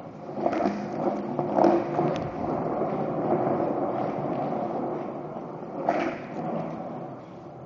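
Skateboard wheels rolling over pavement: a steady rumble with a few sharp knocks along the way, easing off near the end.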